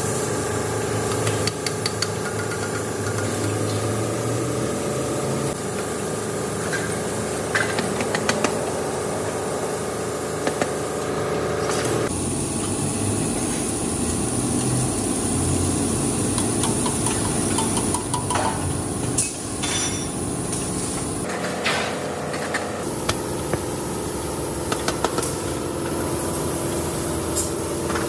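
Steady workshop machinery noise with a hum, with scattered metal clinks and knocks as steel motorcycle muffler parts are handled and pushed together by hand. The background changes abruptly a few times.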